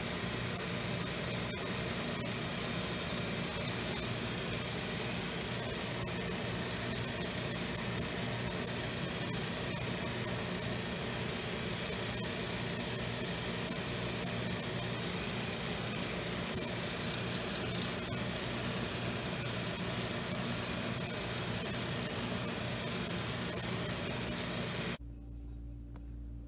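A shoe-repair finishing machine runs steadily, with a rasping hiss that comes and goes several times as work is pressed against its sanding wheel. The noise cuts off suddenly near the end, leaving a low hum.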